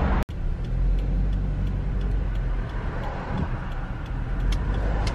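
Steady low rumble of engine and tyre noise from a car driving along a street, heard from inside the car. It cuts out for an instant about a quarter second in.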